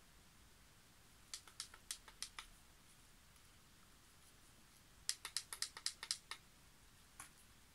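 Two quick runs of small plastic clicks, about seven a little over a second in and about nine around five seconds in, then one more near the end: buttons being pressed on a hair straightening brush that is still heating up.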